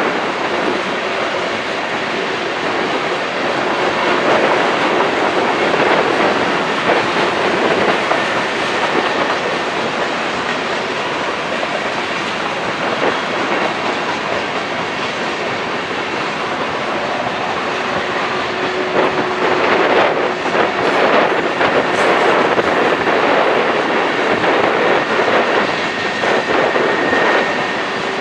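Freight cars of a BNSF manifest train rolling past on a curve: a steady rumble and clatter of steel wheels on rail, with thin wheel squeals coming and going. About nineteen seconds in there is a run of sharper clanks.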